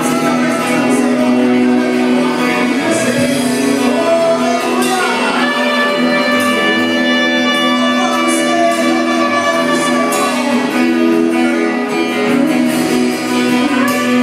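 Live church worship band music: a slow song with long held chords.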